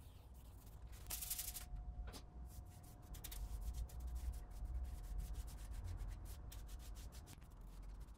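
Wide paintbrush stroking a black finish onto ash table pillars: a soft, repeated swish of bristles on wood.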